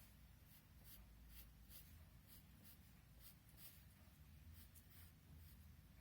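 Faint scratching of a drawing tool on paper in short, irregular strokes, about two a second, as lines are drawn.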